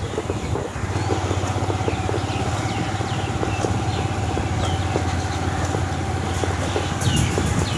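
Motorcycle engine running steadily at low cruising speed, heard from the rider's seat: a constant low hum with rapid even pulses, and a faint steady whine above it.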